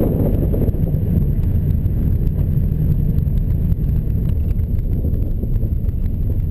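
Steady engine and road rumble heard from inside the cabin of a 2003 Subaru WRX, driven by its turbocharged flat-four.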